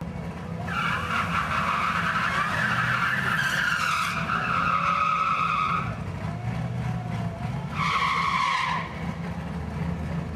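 Tyres screeching under a 2009 Cadillac CTS-V's supercharged V8 during a burnout at the drag-strip starting line: one long squeal of about five seconds with a slightly falling pitch, then a second squeal of about a second, over the steady rumble of idling V8s.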